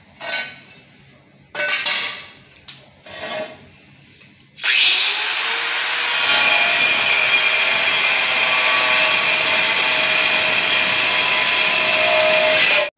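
A few short scraping and handling sounds as the tile is marked, then about four and a half seconds in a handheld angle grinder spins up with a rising whine and cuts steadily through a stacked-stone pattern wall tile, stopping abruptly just before the end.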